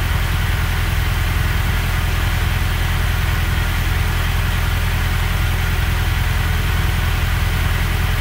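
2002 Toyota Tacoma engine idling steadily, heard from beneath the truck, running on its fresh oil fill with a newly fitted oil pan while it is checked for leaks.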